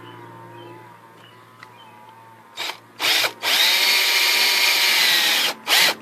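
Electric drill: a quick trigger blip, then the motor spins up and runs steadily for about two and a half seconds before stopping, followed by a few short trigger pulses near the end. It is drilling a marked hole in the plywood bench top for a clamp-pin sleeve.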